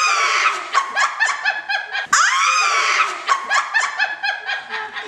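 High-pitched laughter heard twice in almost identical runs. Each run starts with a sharp click and a squeal that rises and falls, then breaks into quick, evenly spaced ha-ha pulses.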